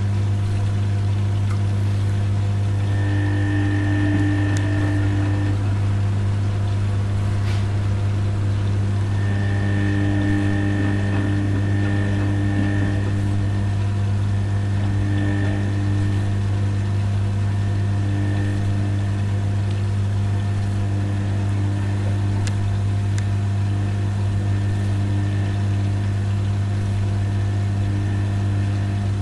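Rex RL12X washing machine's drain pump humming steadily while it empties the water of the last rinse, with fainter tones coming and going above the hum.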